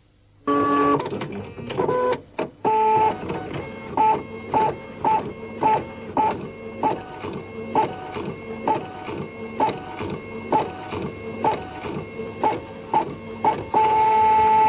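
A printer printing: short buzzing print strokes repeating about twice a second with clicks between them, then a longer steady run near the end.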